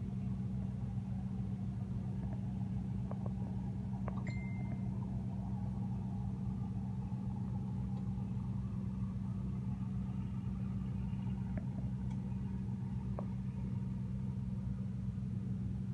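Boat engine running steadily with a low, even hum. A few faint clicks and a short high tone about four seconds in.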